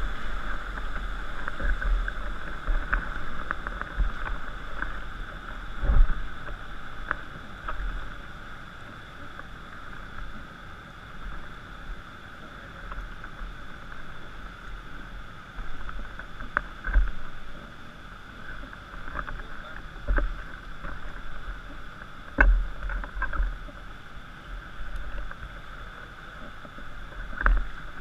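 Steady rush of river water around an inflatable raft, louder in the first several seconds and then easing. Scattered dull thumps and a few sharp knocks sound against the boat.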